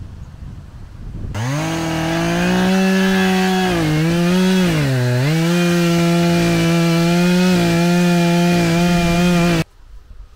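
Echo CS-590 two-stroke chainsaw at full throttle cutting through a felled log, its high steady pitch sagging twice as the chain bogs in the wood, then running steady again. It starts abruptly about a second in and cuts off suddenly near the end.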